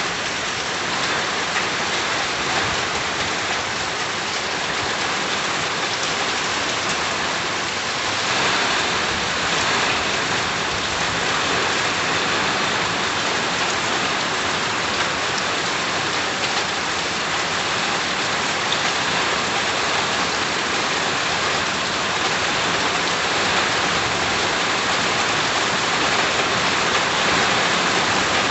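Steady, heavy rain falling and pattering on surfaces around a house, a dense even hiss of drops.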